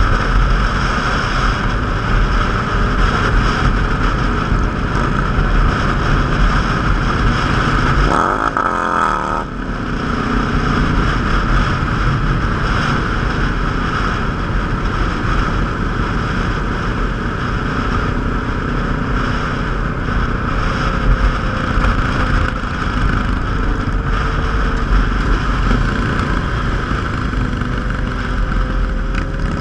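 Motorcycle engine running at road speed under a steady rush of wind over the microphone. About eight seconds in, the engine pitch sweeps up briefly.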